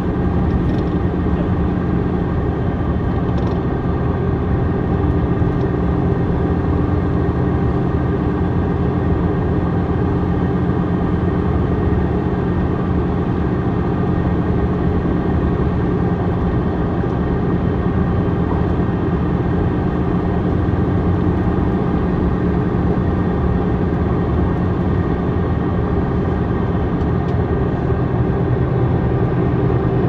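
Iveco Tector 6 six-cylinder diesel of an Iveco Midirider bus with a ZF Ecomat automatic gearbox, running steadily. The uploader says this bus did not sound healthy, with a metal rattle.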